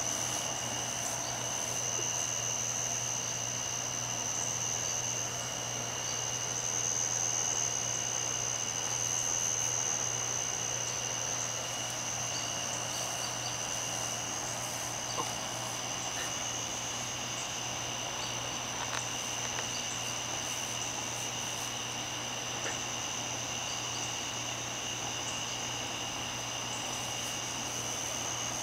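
A chorus of night insects keeps up a steady high continuous trilling, with a constant low hum underneath.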